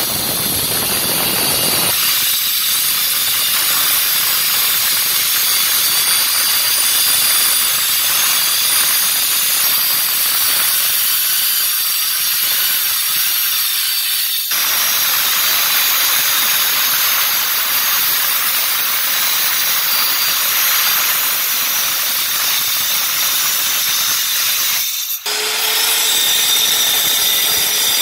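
Handheld electric marble and tile cutter with a diamond tile blade dry-cutting a large vitrified tile, a steady high-pitched grinding whine with hiss, cut off briefly about halfway and again near the end.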